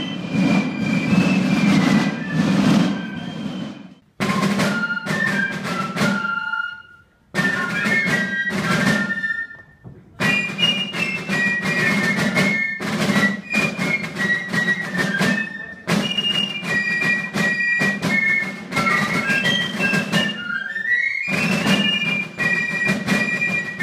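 Basel Fasnacht piccolos playing a march tune in high unison over Basel side drums beating the rhythm. The music breaks off briefly three times in the first ten seconds, then runs on without a break.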